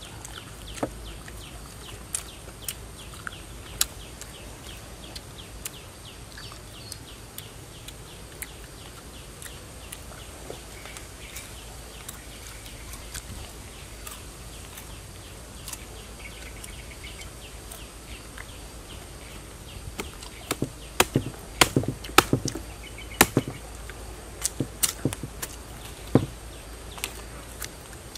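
Knife chopping into the heart of a felled palm trunk: a run of sharp, loud chops in the last several seconds. Before that, only faint scattered clicks and crunches while the raw palm heart is being eaten.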